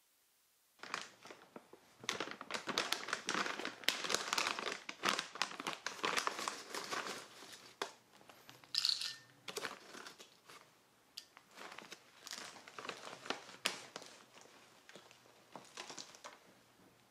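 A plastic bag of dried gardenia fruits crinkling as it is handled and opened, with the dried pods rattling and clicking as they are tipped into a small glass bowl. Starts about a second in, with a brief ring partway through.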